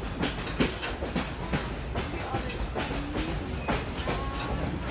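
Passenger train rolling slowly along the track, heard from aboard: a steady low rumble with irregular clicks and clacks from the wheels over the rails, and a few faint brief squeals.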